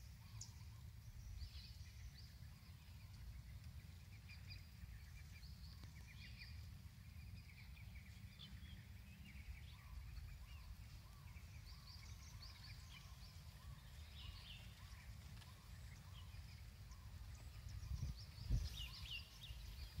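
Faint chirping and twittering of many small birds, with wind rumbling steadily on the microphone; the wind gusts grow stronger near the end.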